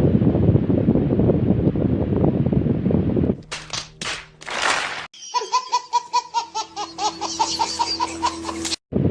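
Dense, steady noise close to the microphone breaks off after about three seconds for an edited-in laughter sound effect. The effect opens with a few short bursts, then runs in a rhythmic 'ha-ha' pattern of about four pulses a second and cuts off abruptly near the end.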